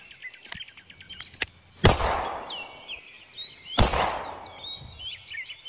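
Birds chirping, with two sudden rushing bursts, about two seconds apart, each fading away over about a second.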